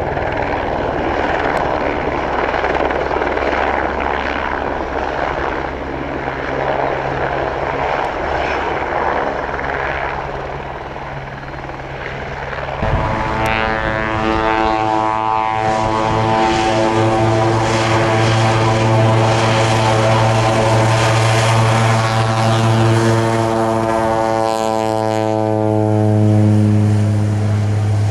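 A light helicopter hovering, its rotor and turbine running. About halfway through the sound cuts abruptly to a Thrush 510G agricultural turboprop, GE H80-powered, at takeoff power on its takeoff roll, a strong propeller drone that grows louder, its pitch dipping slightly near the end as it passes and lifts off.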